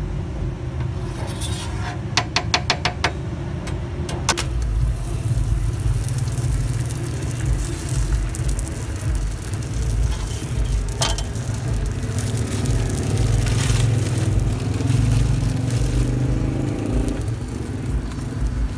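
Steady low rumble, with a quick run of sharp clicks about two seconds in and single taps at about four and eleven seconds.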